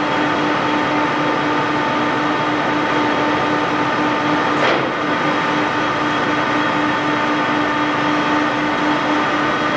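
Kingston HR6000 heavy-duty engine lathe running under power on its 20-horsepower main drive, a steady whine of several even tones from the gear train over a mechanical hum. A single sharp click comes about halfway through.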